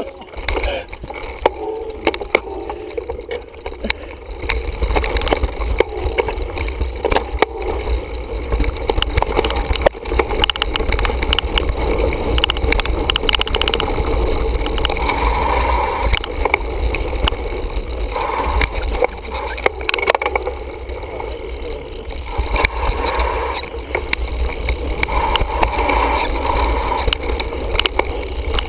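Mountain bike riding down a rough dirt singletrack: a steady rumble of knobby tyres on dirt and leaf litter with wind buffeting the camera's microphone, broken by frequent clattering knocks from the bike over rocks and roots.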